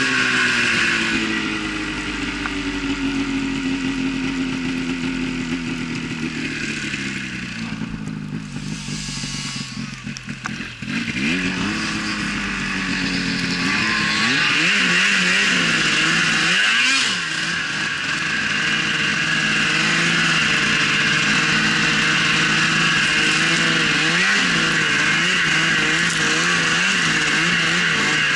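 Snowmobile engine running, its pitch falling over the first few seconds, fading briefly about a third of the way in, then rising and falling again and again as the throttle is worked.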